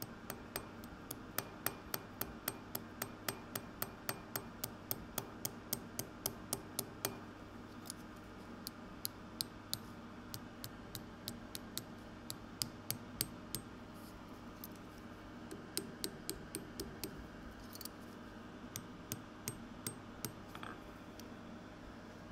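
Hand hammer tapping a small hot metal strip on a steel anvil, curling its end over to form a hinge knuckle. The light, ringing taps come quickly, about four a second, for the first several seconds, then slow to scattered groups of taps with short pauses.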